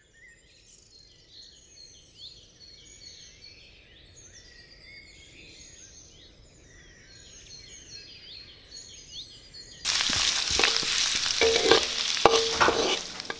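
Faint birds chirping, then about ten seconds in a sudden loud sizzle of garlic and shallots frying in hot oil in a wok. A metal spatula stirs and scrapes through it.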